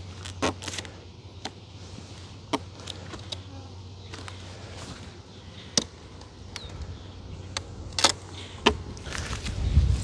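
Wooden beehive boxes and frames being handled: about seven sharp clicks and knocks, spread irregularly, the loudest two close together near the end. A steady low hum lies underneath, with a low rumble rising at the very end.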